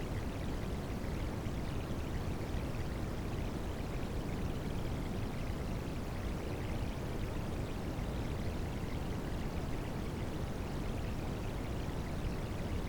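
Rain sounds blended with white noise, as used for tinnitus sound therapy: an even, unbroken rushing hiss, heaviest in the low range.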